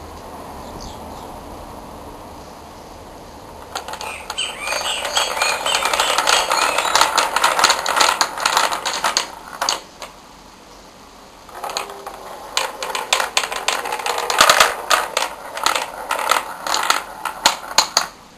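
Large wooden rolling ball clock, its balls clattering and rolling down the wooden tracks as the tilting trays tip and empty. There are two long runs of rapid clicking and rattling: one starts about four seconds in and lasts about six seconds, and the other starts about twelve seconds in and runs until near the end.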